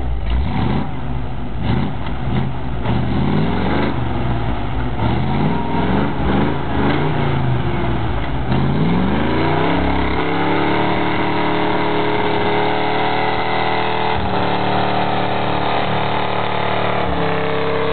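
Dodge Ram 4x4 pickup's engine revving up and down again and again while the truck is stuck in deep snow. About nine seconds in it climbs to high revs and holds there as the truck churns forward through the snow.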